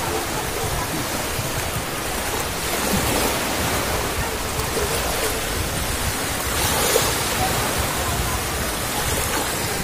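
Small sea waves breaking and washing through shallow surf, a steady rush of water.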